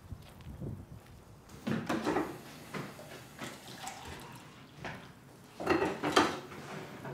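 Dishes and a mug clinking and clattering on a kitchen counter, in two bursts about two seconds and six seconds in, with lighter knocks between.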